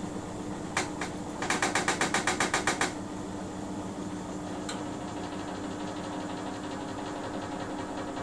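Miele W 5963 washing machine running with a steady hum. About a second in it gives two sharp clicks, then a rapid rattling run of about a dozen loud clicks, roughly eight or nine a second, for about a second and a half, and one more click a little later. This is the abnormal noise the machine makes as it slows down from its 1600 RPM spin.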